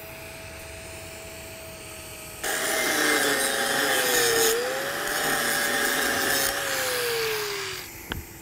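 Angle grinder grinding a weld on a steel pipe for about five seconds, starting about two and a half seconds in. Its whine sags in pitch under load, then falls away as the grinding stops, with a click near the end. The grinding feathers the starts and stops of the weld.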